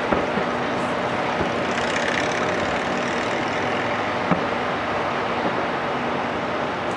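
A steady, noisy rumble with a few short, sharp pops, the clearest about four seconds in: fireworks going off at a distance.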